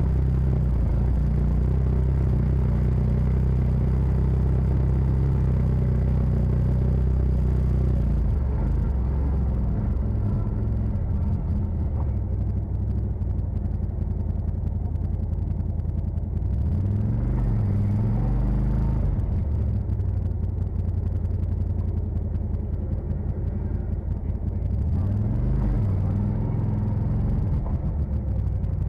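CF Moto side-by-side's engine running as it drives along a trail, with the engine note climbing and dropping back about halfway through and again near the end.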